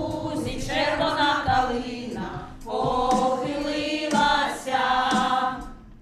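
Women's choir singing together in sustained phrases, with a short breath break about two and a half seconds in.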